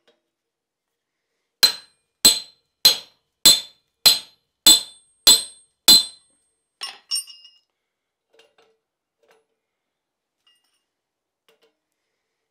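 Blacksmith's hand hammer striking a slitting chisel down into a red-hot bar set in a swage on the anvil: eight ringing metal-on-metal blows in a steady rhythm, about one and a half a second, then a couple of lighter clinks as the chisel is shifted.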